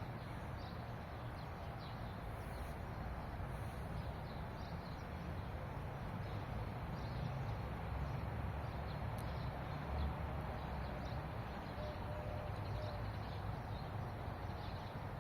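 Faint, short bird chirps scattered over a steady outdoor background hum and rumble.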